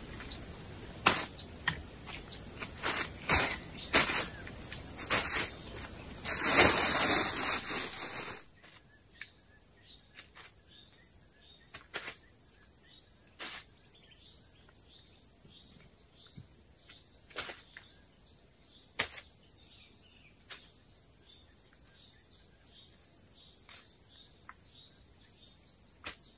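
Insects shrilling steadily in one high tone. Over them come clicks and knocks of handling, with a loud rustle about six to eight seconds in. After that only the insects and a few scattered clicks remain.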